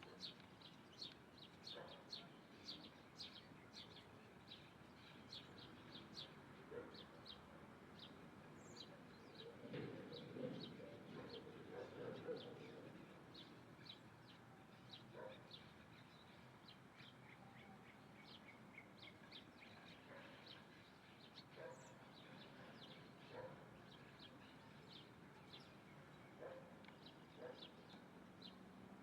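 Small birds chirping, short high chirps repeated about twice a second throughout, with a lower-pitched sound lasting a few seconds about ten seconds in.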